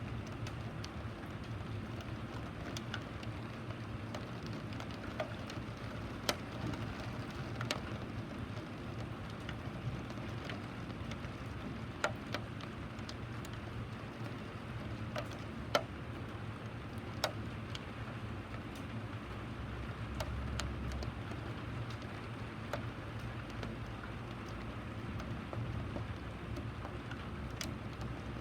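Steady rain falling, with a sharp drip now and then tapping on a hard surface. A brief low rumble comes about twenty seconds in.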